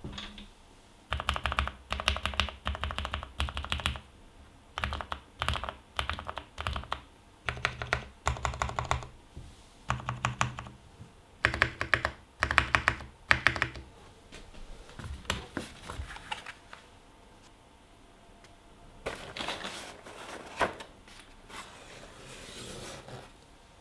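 Custom mechanical keyboard with lubed Cherry MX Brown switches and PBT XDA keycaps being typed on fast, in bursts of about a second with short pauses between them. The typing turns softer and sparser about two-thirds of the way through.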